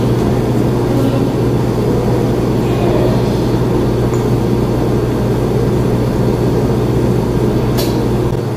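Steady loud machine hum with a low drone and hiss under it. Near the end there is a sharp click, and the deepest part of the drone stops.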